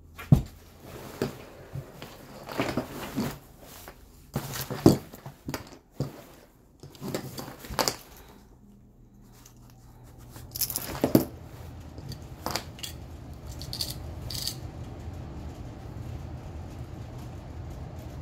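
Handling sounds of a nylon backpack strap being hand-stitched: rustling and scraping of fabric and padding as thread is drawn through, with sharp clicks and knocks. A low steady hum sets in about two-thirds of the way through.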